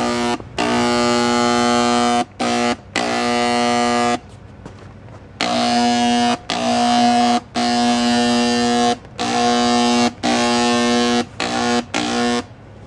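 Handheld electric paint sprayer (Harbor Freight 60446) spraying stain in repeated trigger pulls: a loud, pitched buzz that starts and stops about ten times, each burst half a second to a second and a half long.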